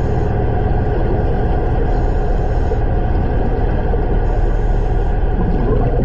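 Steady, loud low rumble of water noise picked up by a camera underwater, with a faint hiss coming and going every couple of seconds.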